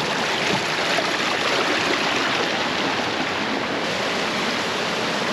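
Small rocky brook running and splashing over rocks and a small waterfall: a steady rushing, babbling water sound.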